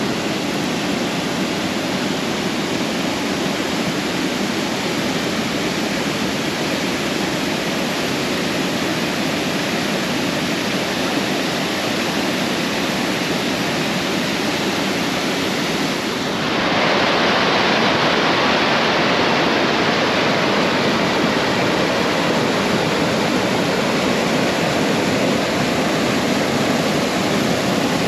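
Creek waterfall rushing steadily. About sixteen seconds in, the rush turns louder and brighter.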